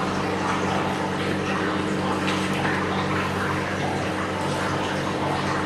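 Finely chopped onions sizzling steadily in ghee in a frying pan on a low flame, an even fine crackle, over a steady low hum.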